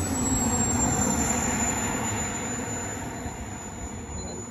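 Model jet turbine engine (K210) of an RC Rebel Pro jet running as the plane rolls past along the runway: a high, steady whine that sinks slightly in pitch, under a rush of engine noise that is loudest about a second in and then fades as the jet moves away.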